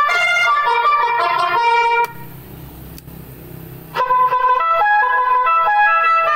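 Electronic 'telolet' horn module playing a tune of stepped horn notes through a horn speaker. It breaks off about two seconds in, leaving a low hum, and a second tune starts about two seconds later.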